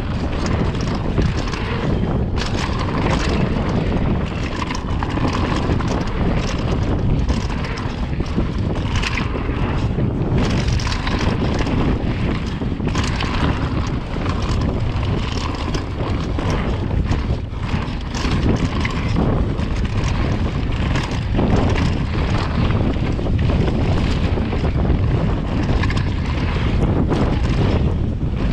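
Wind buffeting the microphone of a camera on a mountain bike riding down a dirt trail, with frequent short knocks and rattles from the bike over rough ground.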